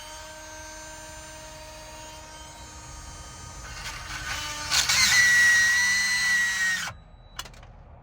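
High-speed rotary tool fitted with a burr bit spins up with a quick rising whine and runs steadily. About five seconds in it gets much louder and harsher as the burr cuts into the lock, then it cuts off abruptly. A single click follows.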